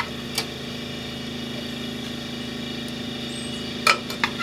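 Steady low mechanical hum from a running kitchen appliance, with a few light knocks as pieces of rump roast are set down in the slow cooker's crock, once about half a second in and twice near the end.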